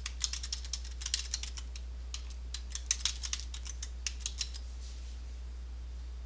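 Typing on a computer keyboard: a quick, uneven run of key clicks that stops about four and a half seconds in, over a steady low hum.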